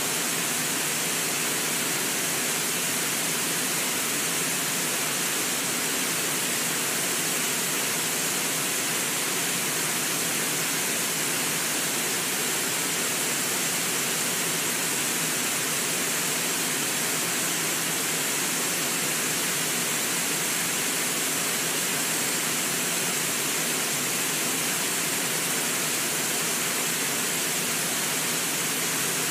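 Steady rush of water pouring over Brooks Falls, a low, wide river waterfall.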